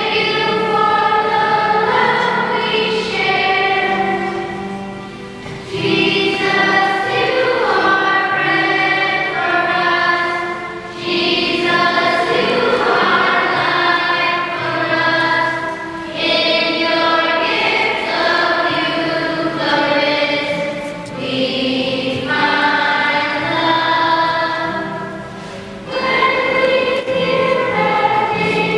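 A choir singing a hymn in sustained, phrase-by-phrase lines, with brief dips in loudness between phrases.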